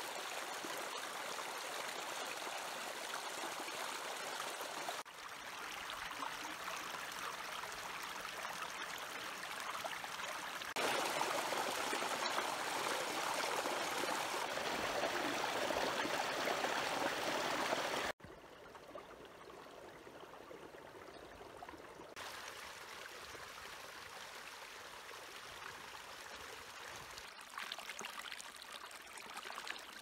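Steady rushing of running water, heard in several segments that cut abruptly from one level to another, loudest in the middle and much quieter after a sudden drop past the middle.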